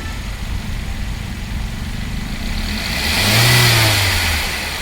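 Freshly overhauled 2013 Hyundai i20 petrol engine idling, then revved once about three seconds in, the pitch rising and falling back to idle over about a second and a half.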